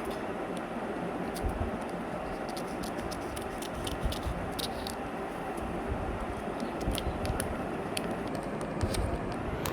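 Scattered crinkles and scratchy clicks of chocolate bars and their wrappers being handled, over a steady background hiss.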